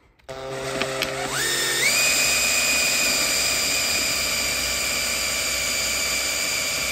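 Power drill boring out a rivet in a plastic ski boot shell's pivot hinge: the motor whine climbs in pitch in two steps about a second and a half in, then holds steady at full speed.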